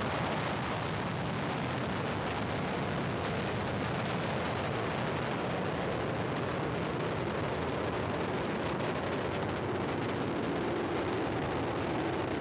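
Rocket noise of Space Shuttle Discovery climbing after liftoff on its two solid rocket boosters and three main engines: a steady, crackling rumble.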